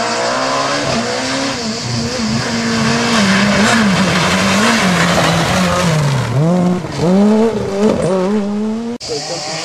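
Rally car engine at high revs, its pitch rising and falling as the driver works up and down through the gears, over a hiss of tyre and road noise. It briefly cuts out near the end.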